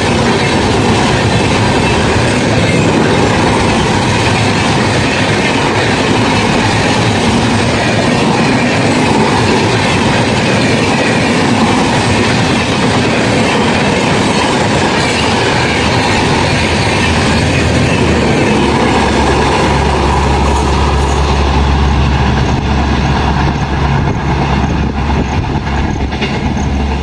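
Coaches of an express train rushing past at speed: a loud continuous rush of steel wheels on rail, with clattering over the rail joints and some wheel squeal. About twenty seconds in, a steady low hum comes up underneath and the hiss of the passing train begins to thin.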